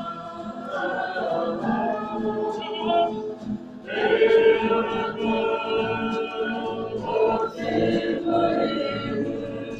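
A group of voices singing together in a choir-like way, a slow song with long held notes.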